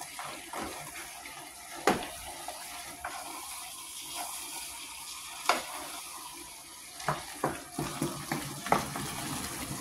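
Steady watery hiss from the kitchen, broken by a few sharp clicks about two seconds in, after five seconds, and several more near the end.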